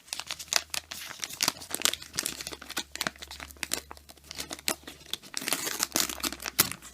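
A trading-card pack's paper wrapper crinkling and tearing as it is peeled open by hand, a run of irregular crackles. The pack is stuck shut by its old bubblegum.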